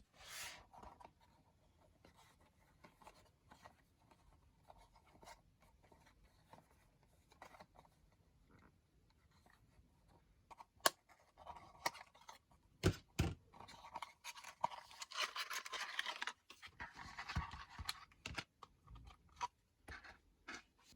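Packaging of a small die-cast model car being handled and opened. Scattered faint clicks and taps, then two sharper knocks about thirteen seconds in, then several seconds of crinkly rustling from about fourteen seconds.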